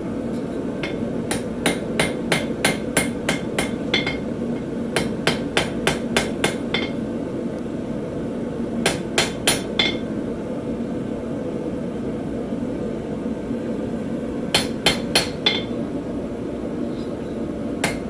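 Hand hammer striking hot steel on an anvil, flattening a knife blade forged from a ball bearing. It comes in four runs of quick ringing blows, about three a second, over a steady low rushing noise.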